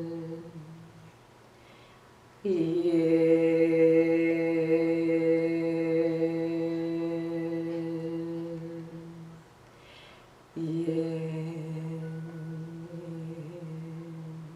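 A woman chanting the qigong kidney healing sound "yin" in long, steady held tones on one low pitch. A tone fades out at the start, then a breath, a held tone of about seven seconds, another breath, and a new tone from near the end.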